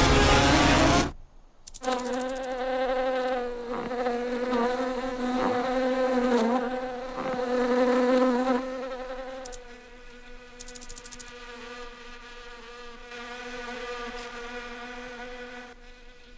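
A fly buzzing in a steady drone with many overtones, its pitch wavering as it flies, then carrying on more quietly past the halfway point. It starts just after a loud rushing noise cuts off about a second in.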